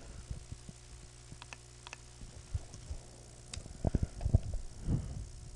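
Faint computer keyboard and mouse clicks as a new web address is entered, a few scattered light clicks and then a cluster of soft knocks near the end, over a steady low hum.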